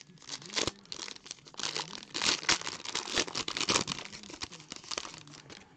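Metallic foil trading-card pack wrapper being torn open and crinkled in the hands: a dense run of crackles and rustles that dies away near the end.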